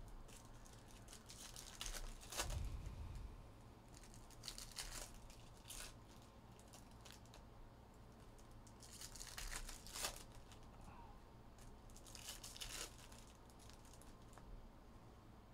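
Foil wrappers of 2023 Bowman Chrome University football card packs being torn open and crinkled, in several short bursts.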